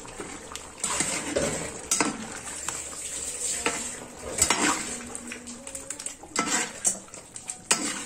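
Metal ladle stirring a thick chicken-and-potato curry in a large metal pot, scraping and knocking against the pot in irregular strokes.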